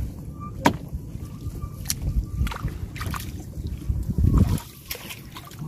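Shallow flood water sloshing and splashing around a person's legs and hands as he wades and gropes through rice plants. There are a few sharp clicks, and a louder low surge comes about four seconds in.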